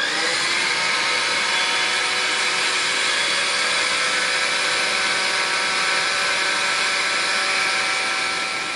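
Recorded sound of an electric blender running at steady speed, its motor a steady whine over a rushing noise. It starts abruptly and fades out near the end.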